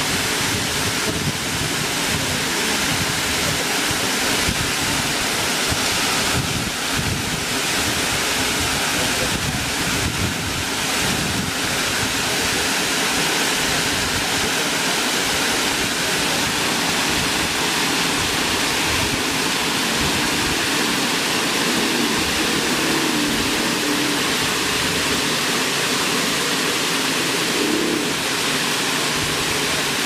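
Waterfall pouring down a rock face, a steady, unbroken rush of water.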